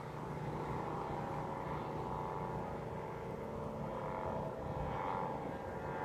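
Bamboo flutes on high-flying Vietnamese kites droning together as a chord of steady tones that swells and fades about once a second, over a low wind rumble.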